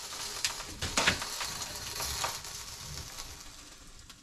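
Crackling and scraping of the cut steel shells of an old water heater tank rubbing as the top half is lifted off the bottom, with a few sharper scrapes about half a second and a second in, then fading.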